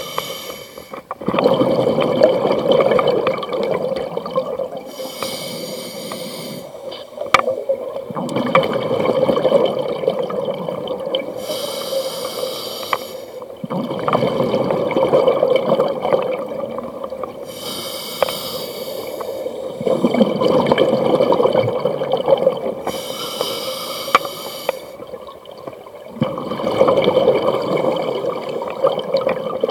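Scuba diver breathing through a regulator underwater: a short hiss of air on each inhale, then a longer bubbling rush as the exhaled air leaves the regulator, repeating about every six seconds.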